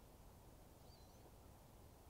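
Near silence: faint outdoor background noise, with one brief, faint, high bird chirp about a second in.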